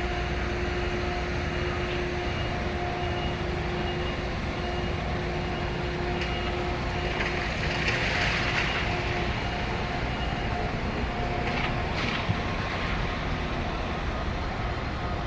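Steady low rumble of heavy engines, with an even mechanical hum, swelling briefly about eight seconds in.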